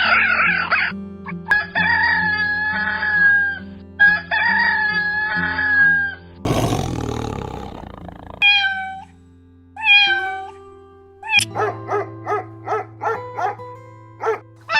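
A succession of different animal calls over steady background music. There are two long held calls, then a harsh noisy call lasting under two seconds about halfway. Two short calls falling in pitch follow, and near the end comes a quick run of short calls, about three a second.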